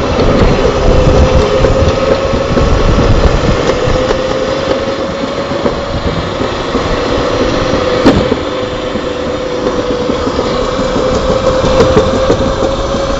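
Summer toboggan sled running down a stainless-steel trough track: a loud, steady rolling rumble with a humming tone that drifts slightly in pitch, and one sharp knock about eight seconds in.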